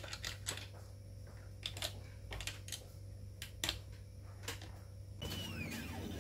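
Light, irregular clicks and taps of small plastic and metal parts being handled and fitted by hand to an RC car chassis's 3D-printed suspension. In the last second there are a few faint rising-and-falling chirps.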